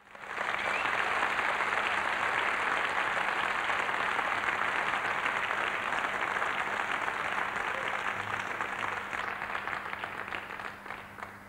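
Concert audience applauding, a dense steady clapping that starts at once and fades away over the last couple of seconds, with a steady low hum underneath.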